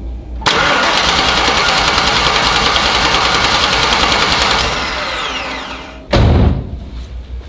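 Chevrolet El Camino being cranked by its starter motor for about four seconds without firing, then the starter winding down with falling pitch. This is the sign that the engine gets no spark: the MSD ignition box's light, which should flash during cranking, stays dark, which the owner puts down to the ignition coil. A short loud thump follows near the end.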